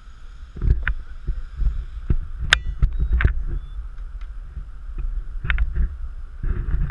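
Skateboard wheels rolling on a concrete path: a steady low rumble broken by sharp clacks and knocks every second or so, the one about two and a half seconds in ringing briefly.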